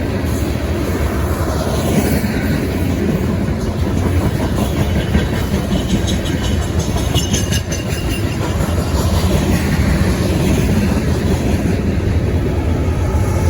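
Freight train rolling past, the cars of what looks like an empty coal train rumbling and clattering steadily over the rails. A brief high wheel squeal comes about halfway through.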